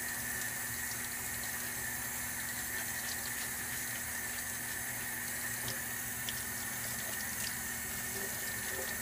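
Tap water running steadily from a faucet into a stainless steel sink and down the drain.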